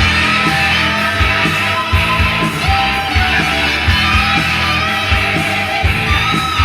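1980s hard rock music: distorted electric guitars and bass over a steady drum beat.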